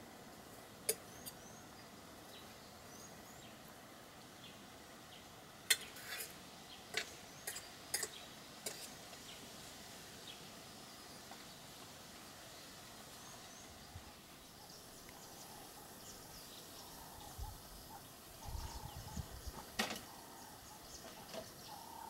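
Quiet outdoor bush ambience with scattered sharp clicks, once about a second in and several between six and nine seconds in, then low rumbles near the end.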